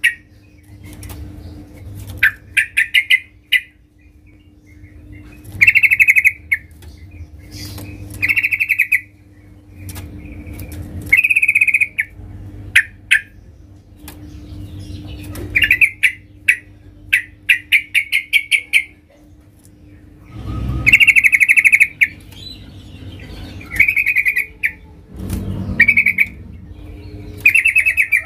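Yellow-vented bulbul giving loud, repeated short bursts of rapid chattering calls, a dozen or so, in the vigorous fighting-mood song that keepers use to draw a rival's answer. A steady low hum runs underneath.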